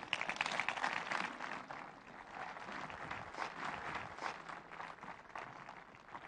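Audience applauding, loudest in the first second or so, then thinning out.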